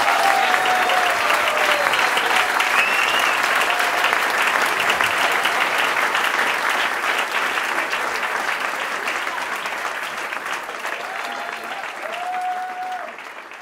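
Audience applauding at the end of a live show, with a few brief cheers over the clapping. The applause fades out gradually.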